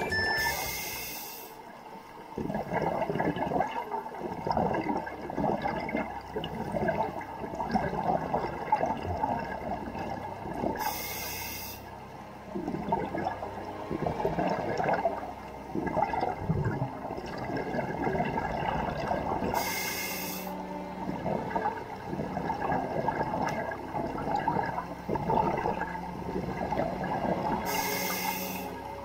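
Scuba diver breathing through a regulator underwater: four short hissing inhalations about eight to nine seconds apart, each followed by a long crackling rush of exhaled bubbles.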